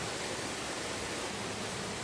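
Steady rush of a flowing river, an even wash of water noise with no breaks.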